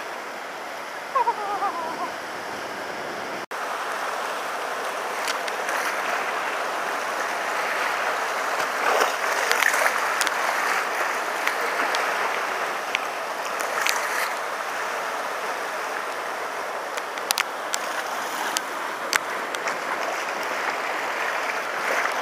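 Choppy sea surf washing in and splashing against concrete sea-wall steps: a steady rushing of water, with louder splashes about nine and fourteen seconds in.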